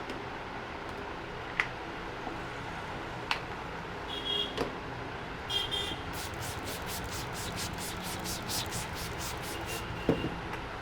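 Street traffic running steadily, with a vehicle horn tooting briefly about four seconds in and again around five and a half seconds. From about six seconds in comes a quick rhythmic run of crisp strokes, about five a second, lasting three or four seconds, with a few sharp clicks scattered through.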